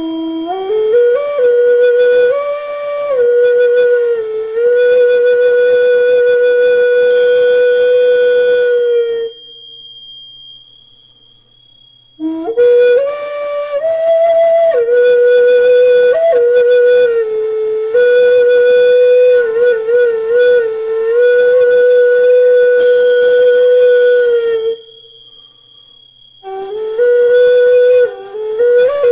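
Gourd-bodied flute played in slow, held notes around one middle pitch, with small slides and quick wavers between neighbouring notes. It plays in three phrases with pauses of two to three seconds between them. A thin, steady, high ringing tone sounds under the first phrase and again near the end.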